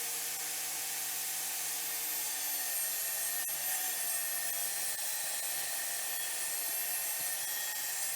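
Kobalt jobsite table saw running steadily with a high whine while ripping narrow strips from a board.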